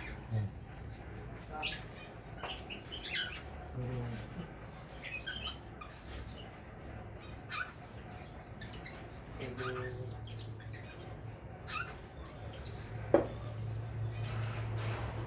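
Small caged birds in an aviary chirping, many short high calls scattered throughout over a steady low hum. One sharp click comes near the end.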